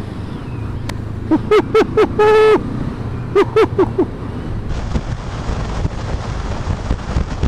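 Engine and wind noise from a motorcycle under way, with two quick clusters of short, sharp, high-pitched calls, the first about a second in ending in one held note and the second about three and a half seconds in.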